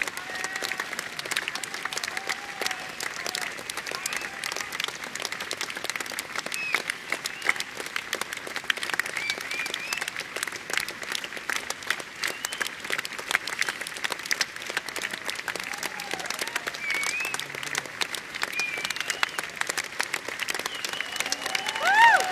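Concert audience applauding steadily, with scattered whistles and shouts through the clapping and a louder one near the end.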